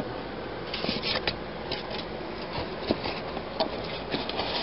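Styrofoam packing block being pulled out of a cardboard box, rubbing and scraping against the cardboard, with a few light knocks of handling.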